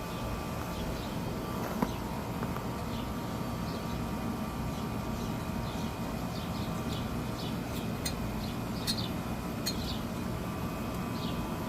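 Steady low background rumble with short high bird chirps repeating throughout. A few light clicks: one sharp one about two seconds in and a few more later on.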